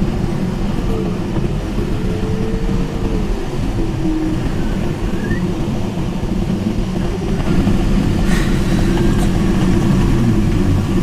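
Steady rush of airflow over the canopy and fuselage, heard from inside the cockpit of a Mini Nimbus HS7 glider in flight. A faint tone slides lower in pitch during the first few seconds, and the rush grows slightly louder about two-thirds of the way in.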